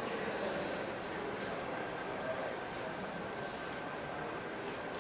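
Sharpie marker drawing on copy paper: a few short, hissy pen strokes over a steady background hum.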